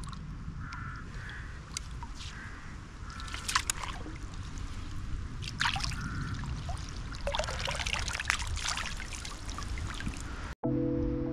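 Water splashing and trickling in irregular bursts, with a few short bird calls behind it.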